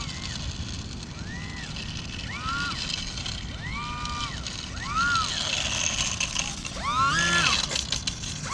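Micro RC biplane's electric motor and propeller revving in short throttle blips while it taxis, about one a second, each a whine that rises, holds and falls in pitch.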